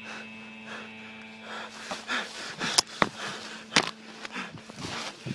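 Footsteps crunching and rustling through brush at a walking pace, about two a second, with a few sharp snaps in the middle. A faint steady hum is there at the start.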